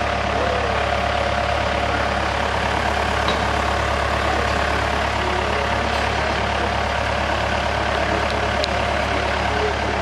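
Steady low mechanical hum, unchanging throughout, with a strong low drone and a steady mid-pitched tone above it.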